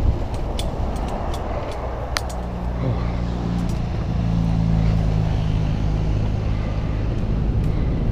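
Wind rushing over a helmet-mounted camera's microphone while riding a downhill mountain bike, with a few sharp clicks and rattles from the bike. A steady low hum comes in about two seconds in as the bike rolls from the grass track onto tarmac.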